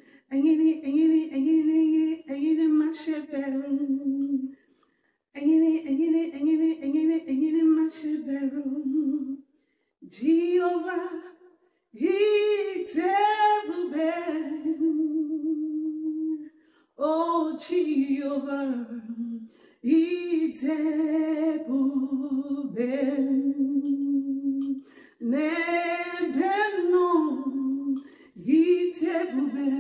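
A woman singing a worship song unaccompanied, in phrases of a few seconds with short breaks between them and a wavering vibrato on the held notes.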